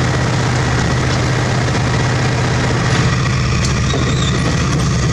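Heavy diesel engine idling steadily with an even low hum, and a brief knock about three seconds in.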